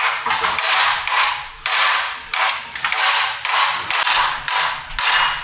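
Hammer blows on a punch or chisel against a rusted sheet-steel motorcycle fender, in a steady run of about two strokes a second, each a crunchy metal hit that dies away quickly.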